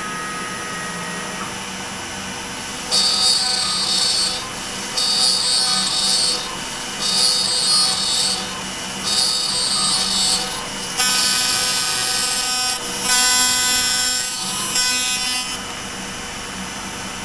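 Compact router on a LongMill Mk2 CNC cutting wood in repeated passes: six loud bursts of cutting noise, each a second or two long and about two seconds apart, over the steady drone of the spinning router and a dust-collection vacuum.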